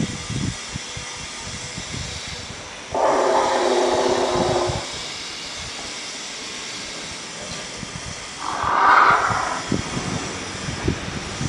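The walking dinosaur costume gives two roars, the first lasting about two seconds starting about three seconds in and a shorter one near the end, over a steady hiss, with scattered low thumps.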